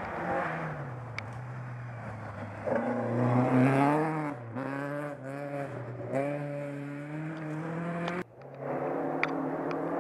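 Rally car engine on a gravel stage, revving hard, its pitch climbing and then dropping at gear changes. The sound breaks off abruptly about eight seconds in and picks up again a moment later.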